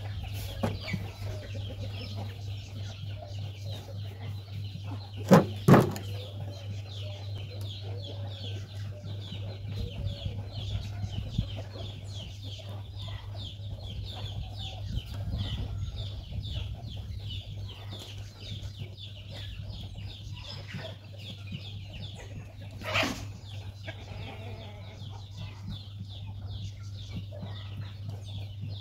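Steady outdoor background of rapid, high, repeated chirping over a low hum, broken by two sharp knocks about five seconds in and another near the three-quarter mark.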